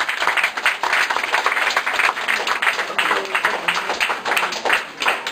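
A crowd applauding, with many hands clapping densely. It cuts off suddenly at the end.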